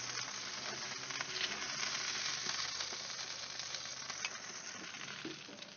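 Bacon-wrapped chicken and its drippings sizzling on a hot barbecue grill, the sizzle slowly dying away as the chicken is lifted off.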